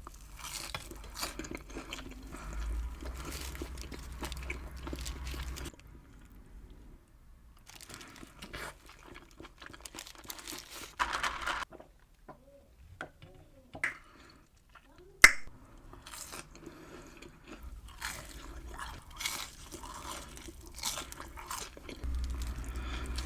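Close-miked chewing and crunching of a fast-food burger, in stretches of wet, crackly mouth noise broken by short quiet pauses between bites. A single sharp click about fifteen seconds in is the loudest sound.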